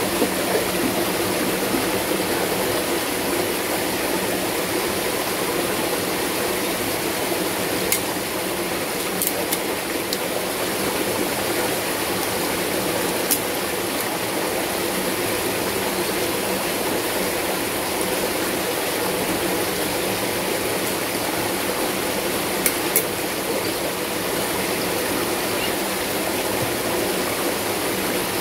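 Steady rush of stream water pouring into and swirling in a stone trough, with a few light clicks.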